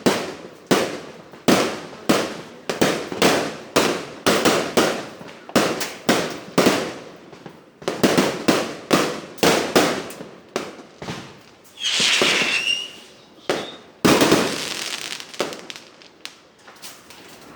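Fireworks going off: a rapid string of sharp bangs, about one or two a second, each dying away quickly. About twelve seconds in comes a longer hissing burst with a whistle, then a bang followed by crackling. The bangs thin out and grow fainter near the end.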